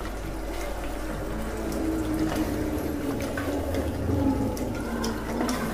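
Chicken and thick masala frying in oil in an aluminium pot, a steady sizzle, while a wooden spatula stirs and scrapes it with scattered taps against the pot. The Kolhapuri chilli powder has just gone in and is being fried into the masala.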